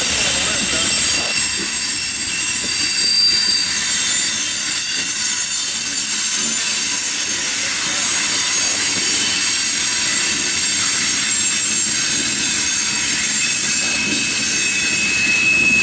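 Coal hopper cars of a freight train rolling steadily past, their wheels squealing against the rails in several steady high-pitched tones over a continuous rumble.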